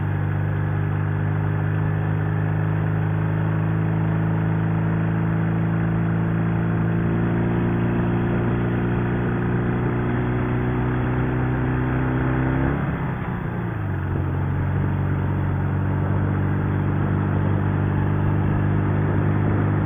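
Sidecar motorcycle's engine pulling steadily on the road with wind rush, its note slowly rising. About thirteen seconds in the note drops suddenly and dips for a moment as the rider shifts up a gear, then the engine pulls on steadily.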